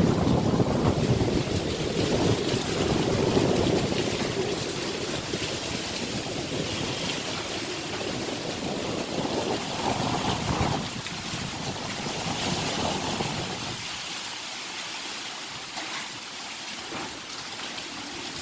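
Typhoon winds gusting hard, with a steady hiss of heavy rain underneath. The gusts are loudest in the first half, swell again about ten seconds in, then ease off in the last few seconds.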